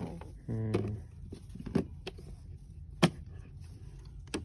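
Three sharp clicks or knocks, spaced about a second or more apart, from cardboard packaging being cut and handled around a new washing machine.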